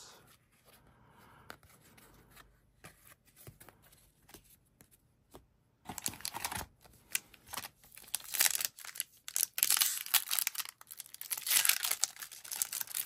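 Trading card pack wrapper being handled and torn open, with faint scattered clicks for the first half, then loud crinkling and tearing of the wrapper from about six seconds in.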